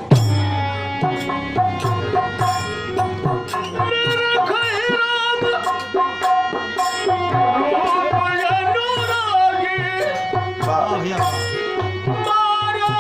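Hindustani devotional music: tabla playing a steady teen taal rhythm under a sustained, wavering melody line between the sung verses.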